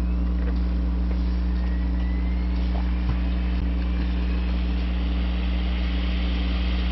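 Steady low machine hum, with a faint high whine slowly rising in pitch.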